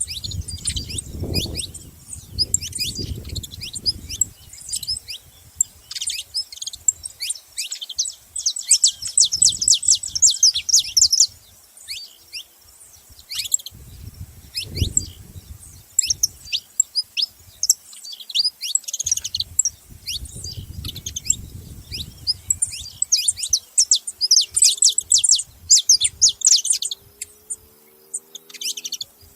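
Several saffron finches chirping and singing together in fast, high trills and bursts of sharp notes, with brief pauses between bouts. A low rumbling noise comes in underneath a few times.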